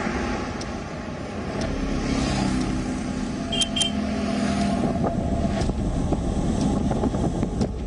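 Road traffic: cars driving past with a steady engine and tyre rumble, and two short high beeps about three and a half seconds in.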